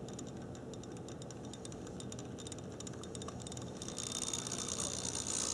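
Vintage Mantua HO-scale 0-4-0T tank locomotive running slowly on the track: a quiet steady motor hum with rapid light ticking from its wheels, gears and valve gear. About four seconds in, a higher-pitched whirring grows louder.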